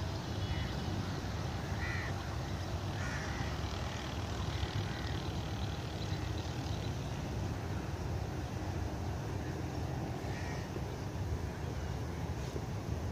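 Crows cawing now and then, a few short calls scattered over a steady low outdoor rumble.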